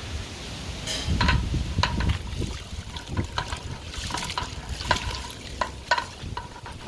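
Metal utensil clinking and knocking against a large metal cooking pot, a dozen or so irregular, short ringing knocks over a steady low rumble.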